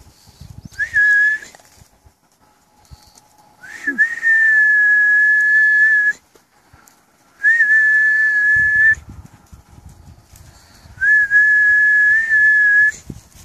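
Four whistle blasts, each held steady at one high pitch after a slight upward flick at the start. The first is short and the other three are long. It is a recall whistle to call hunting dogs back.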